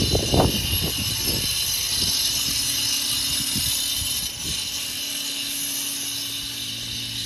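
Street ambience with a steady engine hum that sets in about three and a half seconds in, after a few low thumps in the first second or so.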